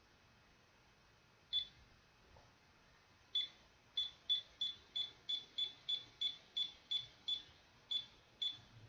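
Digital alarm clock beeping at each button press while its time is being set: one short high beep, then after a pause a run of about a dozen quick beeps, roughly three a second, as the setting is stepped along.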